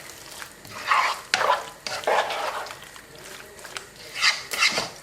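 A spoon stirring boiled pasta through thick, cheesy white sauce in a pan on the heat: irregular wet swishes and scrapes, with a few sharp clicks of the spoon against the pan.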